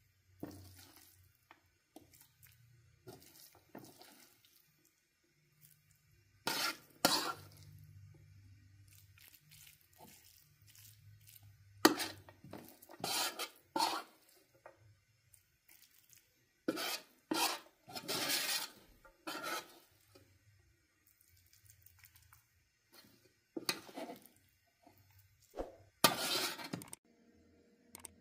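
A metal spoon scraping and clinking in a metal pot as it scoops out a moist herb stuffing, in irregular bursts of a second or so.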